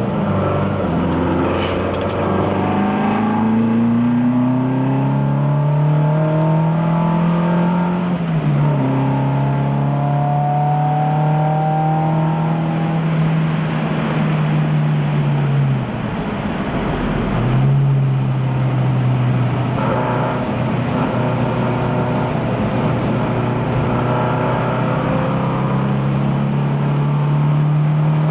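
Alfa Romeo Giulia's twin-cam four-cylinder racing engine heard onboard, revving up hard through the gears. A gear change about eight seconds in drops the pitch, which then holds steady. The engine lifts off briefly around sixteen seconds before pulling and rising again.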